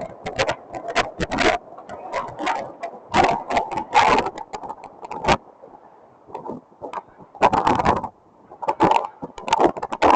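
Tornado wind gusting on a security camera's microphone, with rapid, irregular bursts of clattering impacts that come and go, easing briefly about six and eight seconds in.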